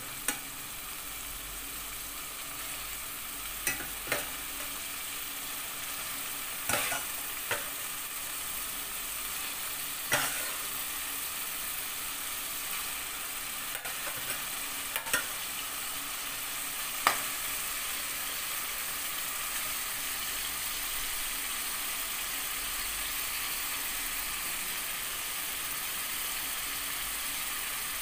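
Boneless chicken pieces sizzling as they fry in tomato masala in a steel kadhai, a steady hiss that grows a little louder. Now and then, mostly in the first half, a metal spoon clinks sharply against the pan.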